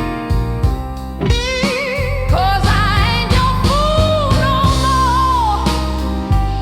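Slow blues music with guitar: a wavering lead melody with bent, vibrato notes over a steady bass line.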